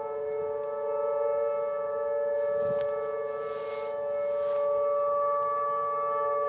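Outdoor tornado warning siren, a Whelen Vortex with other area sirens layered in, sounding a steady alert tone. It holds its pitch with a slight waver and several tones stacked together. A brief rush of noise passes about halfway through.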